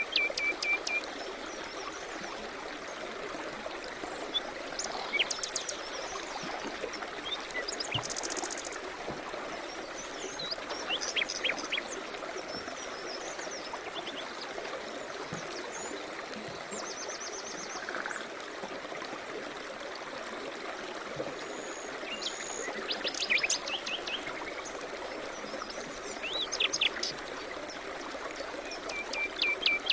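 A river or stream running steadily, with songbirds calling over it: scattered chirps and short twittering phrases every few seconds, and a trill of quick, even notes near the start and again near the end.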